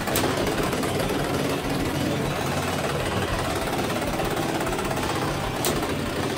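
Two Beyblade X tops, Viper Tail and Knight Lance, spinning on the stadium floor with a steady whirring rattle. Two sharp clacks as the tops strike each other, one right at the start and one near the end.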